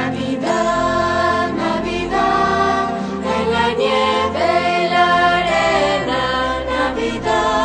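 Background music with singing voices, continuous and steady in level.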